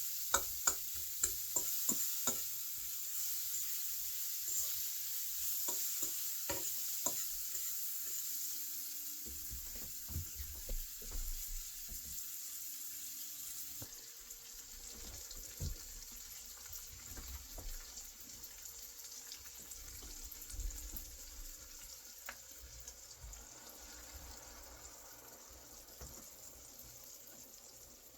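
Food sizzling in a frying pan, with a utensil clicking against the pan as it is stirred, mostly in the first several seconds. The sizzle drops off about halfway through and the rest is quieter.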